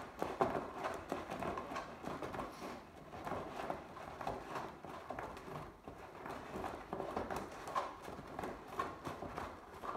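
Lace being drawn through the punched holes of a fiberglass lamp shade panel and its ring: irregular light scraping, rustling and small taps as hands work the lace around the rim.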